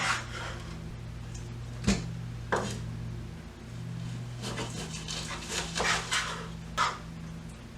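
Knife slicing through raw chicken breast on a cutting board, with rubbing strokes and a few sharp taps of the blade on the board. A steady low hum runs underneath.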